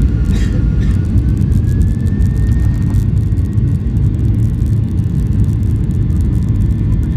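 Boeing 737-800's CFM56-7B engines at take-off thrust, heard from a cabin seat over the wing during the take-off roll: a loud, steady rumble, with a whine that rises in pitch over the first three seconds and then holds steady.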